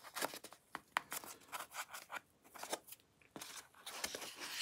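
Fingers scraping and prying at a cardboard watch box and its foam-lined inner lid: a string of faint, irregular scratches, clicks and rubs.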